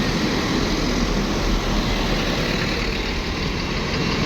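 A large diesel engine, such as a bus's, idling steadily with a low rumble.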